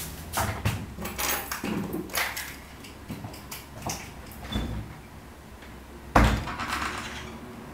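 Someone moving about a room: scattered knocks, clicks and rustling, with one loud thump about six seconds in.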